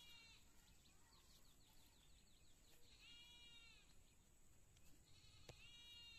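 Faint, distant animal calls: three drawn-out, high-pitched cries, one at the start, one about three seconds in and one near the end, with a quick run of short high chirps in between.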